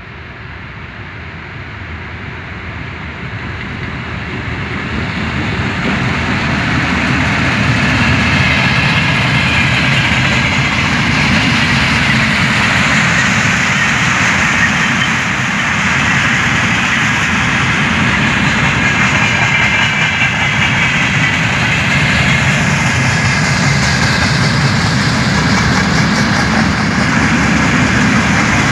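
Freight train approaching and passing, growing louder over the first several seconds as the locomotive draws near. After that, a long string of tank wagons rolls by with a steady rumble of wheels on rail.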